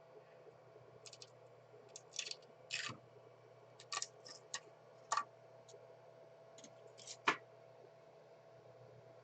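Irregular short clicks and scrapes, about a dozen, over a steady low hum; the sharpest come about five and seven seconds in.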